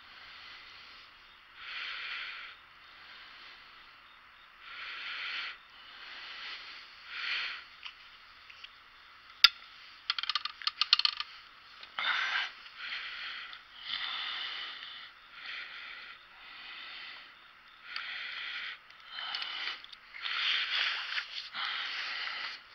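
A man's breathing and sniffing, heard as repeated short noisy breaths close to a hat-mounted camera microphone that gives it a thin sound. One sharp click comes about nine seconds in, followed by a quick rattle of clicks as he handles his arrow and compound bow.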